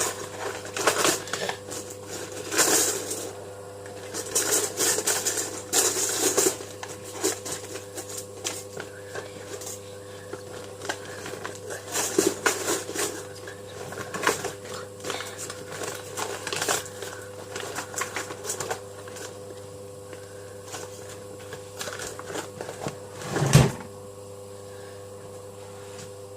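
Irregular clatter, clicks and rustling of small household objects being handled and rummaged through, over a steady electrical hum. A single louder thump comes near the end.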